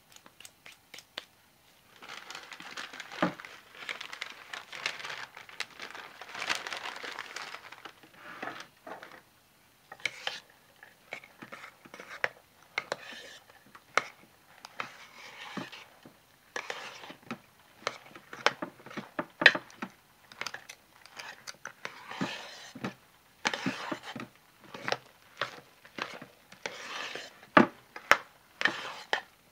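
A spatula stirring and scraping crumbled salt-bar soap into hot-process soap in a crock pot: gritty crunching and scraping with irregular sharp knocks of the spatula against the pot.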